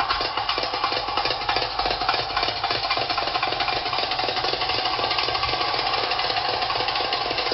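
Belly-dance music carried by fast, dense drumming in a rapid, even roll.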